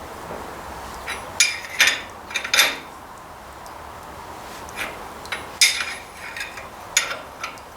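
Hand tools and metal tractor parts clinking and tapping against each other, about eight sharp, irregular clinks in two bunches.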